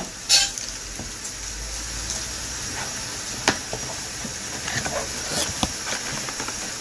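Packing tape being peeled off a cardboard box and the cardboard flaps lifted open: scratchy rustling and crinkling, with a loud rasp just after the start and a sharp click about halfway through.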